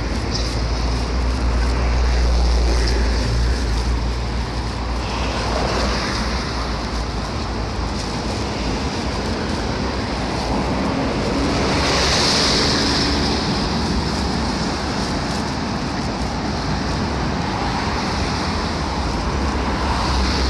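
Road traffic noise: a continuous rumble and hiss of cars and buses on the road beside and below the walkway, swelling once about midway as a vehicle passes.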